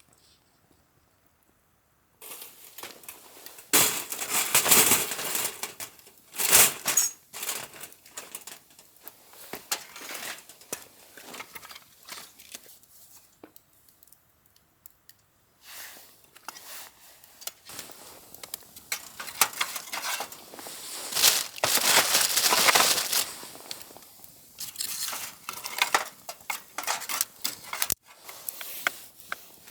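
Crinkly packaging being handled and torn, in irregular bursts with a few light clicks, after a quiet first two seconds.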